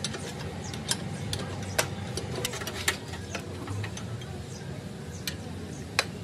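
Irregular sharp clicks and knocks, a few strong ones a second or so apart among many fainter ticks, over a steady low hum.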